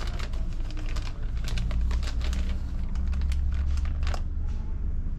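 Irregular light clicks and crinkling, several a second, over a steady low rumble; the clicks stop about four seconds in.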